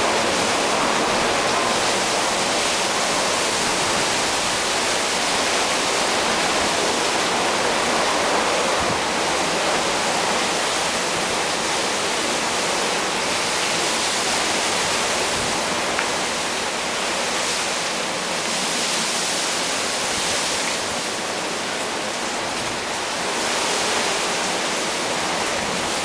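Typhoon wind and heavy rain: a steady rush of rain with wind gusting through the trees, swelling a little now and then.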